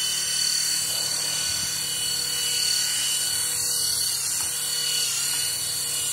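Small electric motor and propeller of a hand-launched LED flying-ball toy whining steadily at high pitch as it spins up and hovers, the pitch dipping slightly about five seconds in.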